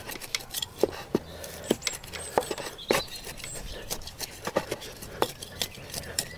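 Garden soil being worked by hand while planting: irregular small clicks, knocks and scrapes of earth and grit, several a second.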